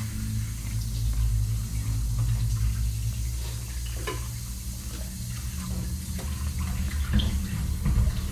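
Steady rush of water, with a low steady hum underneath and a few faint clicks.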